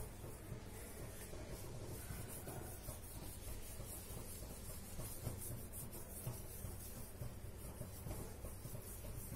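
Faint scraping and rubbing of a spoon working dry maida flour into an oiled sheet of dough, with small irregular scratches as it moves.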